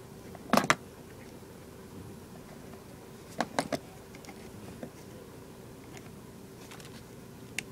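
Plastic tackle box compartments and lures being handled: a pair of sharp clicks about half a second in, a few more around three and a half seconds, then fainter ticks, over a faint steady hum.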